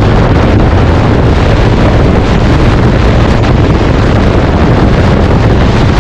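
Loud, steady wind noise buffeting the microphone over a constant low rumble.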